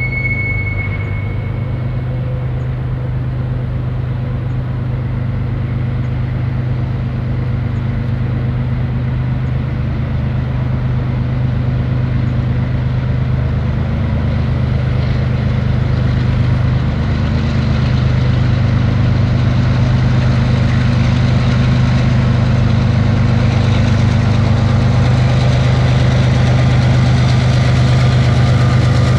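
Diesel-electric freight locomotives approaching with their engines running in a steady low drone that grows gradually louder as they near. A high thin tone fades out in the first couple of seconds.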